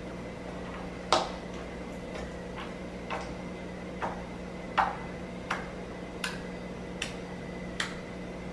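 Blue glitter slime poked over and over with a fingertip, giving about ten small, sharp clicks and pops at a fairly even pace, roughly one every three-quarters of a second.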